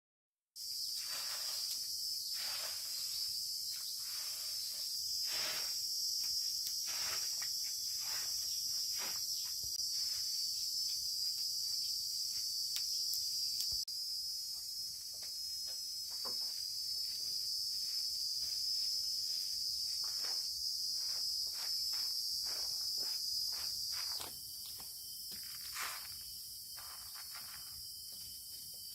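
Insects chirring steadily in a high, continuous drone, with many short rustles and taps underneath. The drone drops a little about 24 seconds in.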